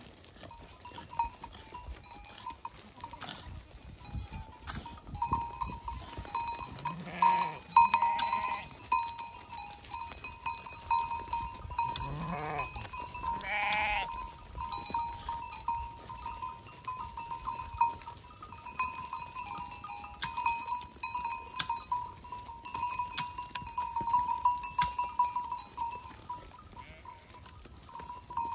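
Flock of sheep and goats bleating a few times in wavering calls, over a steady tinkle of livestock bells and scattered small knocks.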